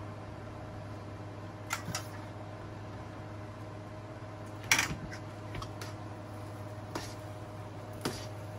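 Metal tongs clinking against a stainless steel skillet as spaghetti is tossed in sauce: several short sharp clicks at irregular intervals, the loudest about halfway through, over a steady low hum.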